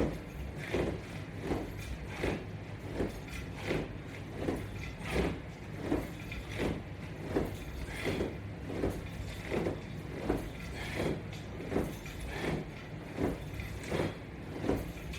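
Crunches done at a steady pace with resistance-band straps: one short swishing sound with each rep, about three every two seconds.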